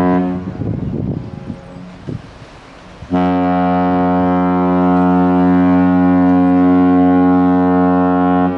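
Cruise ship Mein Schiff 3's horn blowing. A deep blast ends about half a second in, and after a gap of roughly two and a half seconds a second long, steady blast sounds for about five seconds, stopping just before the end.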